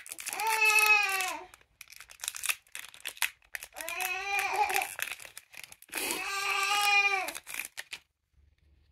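A young child's voice making three long, wordless, high-pitched cries that rise and fall, with crinkling of foil booster-pack wrappers in between.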